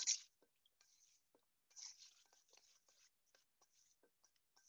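Faint scraping of a metal spoon stirring smashed cucumbers and dressing in a stainless steel bowl, with a few small clicks; the scrapes are densest about two seconds in.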